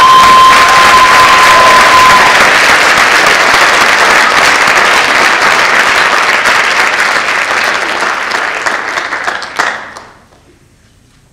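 An audience applauding in an auditorium. A single high steady tone rings over the clapping for about the first two seconds, and the applause dies away about ten seconds in.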